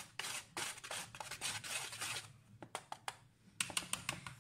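Wire whisk stirring sifted flour and cocoa powder in a plastic bowl: scratchy, swishing strokes. There is a short lull past the middle, then quicker, shorter strokes near the end.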